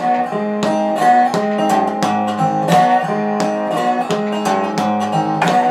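Intro music: an acoustic guitar picking a steady, repeating pattern of notes, about three attacks a second.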